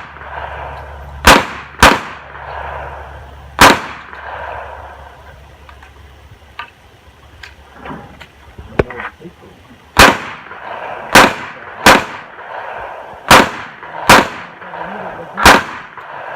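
Smith & Wesson Model 66 revolver firing nine loud shots: three in the first four seconds, then about six seconds of small metallic clicks of a speed-loader reload, then six shots about a second apart.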